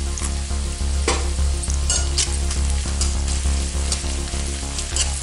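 Onions, garlic, ginger and green chillies sizzling in hot oil in a metal kadai, with a spatula scraping and knocking against the pan now and then as they are stirred. A steady low hum runs underneath.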